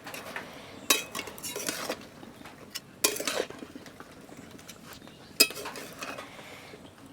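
A metal utensil clinking and scraping against a cooking pot, in several separate clatters a second or two apart.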